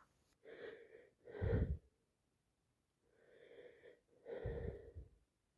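A woman with a heavy cold breathing heavily through a congested nose: four noisy breaths, in two pairs.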